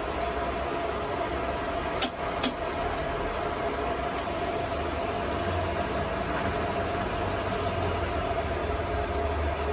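Metal lathe running steadily, its spindle turning with a low hum and a steady whine. Two short clicks about two seconds in.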